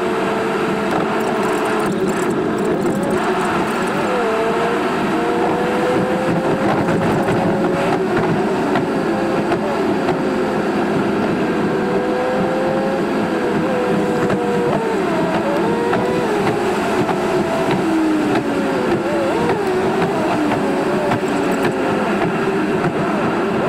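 Car engine and road noise heard from inside the car, the engine's pitch rising and falling again and again as it drives.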